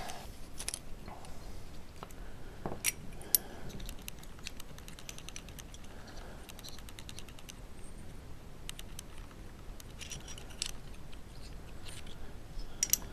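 Small metal gimbal parts being handled: scattered clicks and light taps as the pitch motor and its arm are turned and fitted by hand, with a sharper click about three seconds in and a cluster of ticks near the end.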